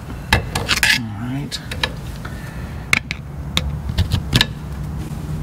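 Sharp metallic clicks and clinks, several of them spread across the few seconds, as a screwdriver and the steel brake-pad retaining pin and tension clip knock against a disc brake caliper during fitting. A steady low hum runs underneath.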